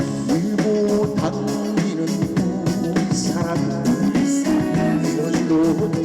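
Korean trot music played loud through a stage sound system: an instrumental passage of the song with a steady beat and a melody line.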